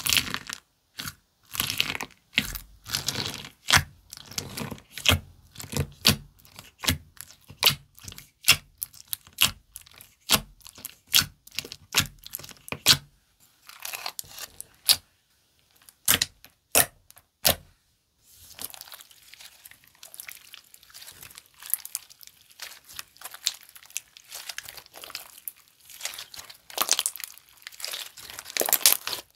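Jelly slime being worked by hand, giving a string of sharp, sticky clicks and pops. About eighteen seconds in, these turn into a denser, continuous crackling.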